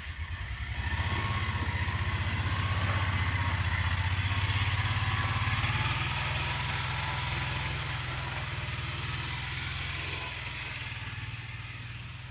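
A small vehicle engine running, growing louder about a second in and then slowly fading toward the end.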